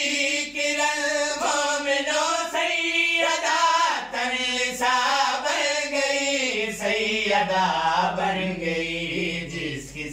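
A man singing an unaccompanied Urdu devotional poem, drawing out long wavering notes without clear words, with a slow falling phrase near the end.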